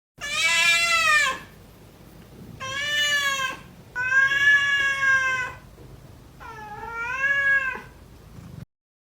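A domestic cat meowing four times in long, drawn-out meows, the third the longest. The recording cuts off suddenly near the end.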